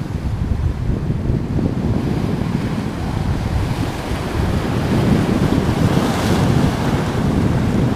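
Surf breaking and washing over shoreline rocks, with wind buffeting the microphone as a steady low rumble. A wave surges over the rocks and the wash gets louder about five seconds in.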